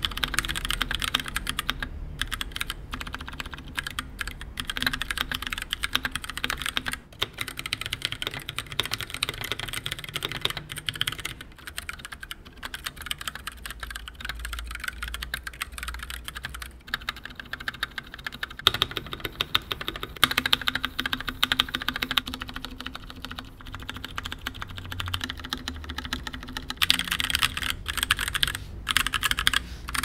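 Fast continuous typing on a Keychron K6 65% mechanical keyboard with Keychron Brown tactile switches, a dense run of key clacks. For the first part the board has O-rings fitted to damp the bottoming out. From about two-thirds through it is the stock board with no mods.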